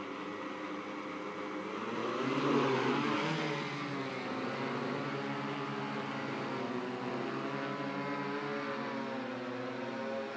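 RCTimer S800 hexacopter's six 350 kV brushless motors with 15-inch carbon-fibre props, already spinning, then throttling up about two seconds in as it lifts off. It settles into a steady hovering hum whose pitch wavers as the motors adjust.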